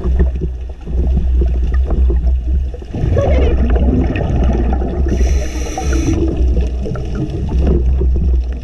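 Underwater water noise picked up by a camera in its housing: a steady low rumble with crackling, dipping briefly a few times, and a hiss lasting about a second around five seconds in.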